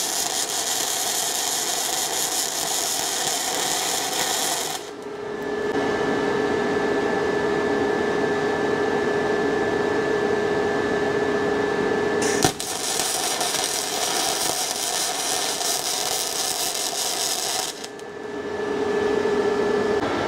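Electric arc welding of a steel foot plate onto a side stand: two runs of steady crackling hiss, the first lasting about five seconds and the second starting with a sharp click about twelve seconds in. Between the runs a steady hum with a higher whine carries on.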